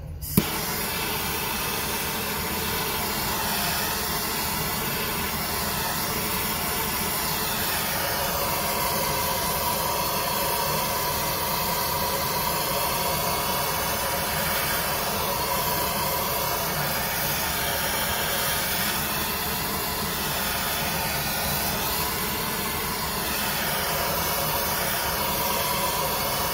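A handheld gas torch is lit with a sharp pop about half a second in, then burns with a steady hiss as its flame heats the exhaust manifold so the metal expands and the bolts can go back in.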